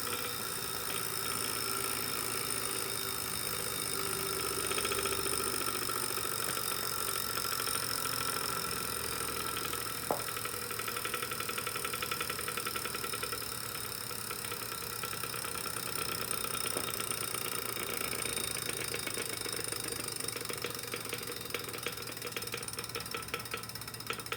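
Wahoo KICKR 2018 direct-drive smart trainer running under pedaling: a steady whine with a fast rattling tick, the abnormal noise the unit has developed after about two and a half years of use. One sharp click about ten seconds in; the ticking grows plainer near the end.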